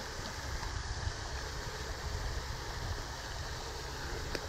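Wind buffeting the microphone outdoors: a steady low rumble with a faint click near the end.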